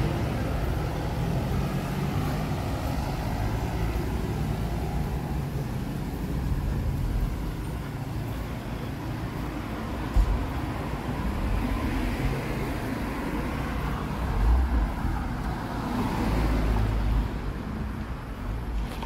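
City street traffic: a steady rumble of passing cars, with a few vehicles swelling by in the second half and a brief thump about ten seconds in.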